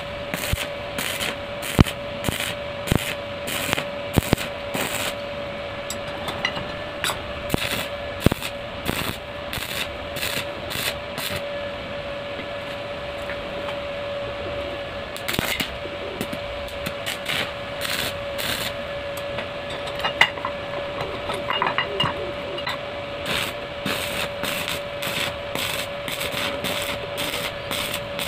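Stick (arc) welding on steel: the arc crackles and pops irregularly, over a steady hum. The crackle thins out for a few seconds midway, then picks up again.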